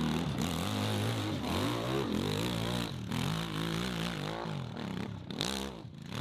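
Hill-climb motorcycle engine revving hard under load on a steep dirt climb, its pitch rising and falling again and again as the throttle is worked. The engine drops off briefly near the end.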